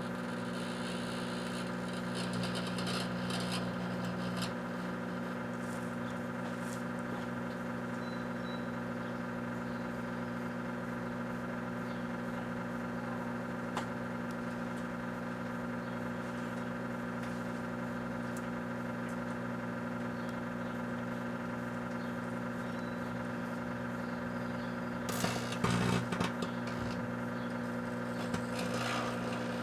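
Kenmore microwave oven running with a steady electrical hum. Over it come crackles and sharp pops from a Rubik's Cube heating and breaking apart inside; the crackling is heaviest in the first few seconds and in a loud burst near the end.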